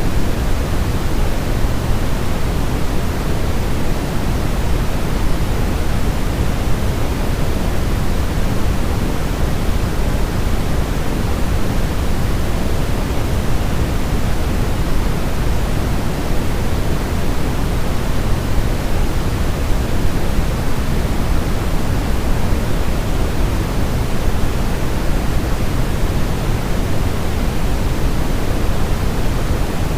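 Steady, unbroken generated noise, fuller in the low end than the highs like pink noise: a baby-sleep white-noise track meant to imitate the sound of the womb.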